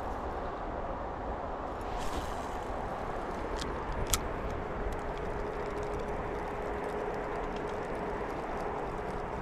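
Steady low rushing outdoor background noise, with a few sharp clicks about two and four seconds in and a faint steady hum through the second half.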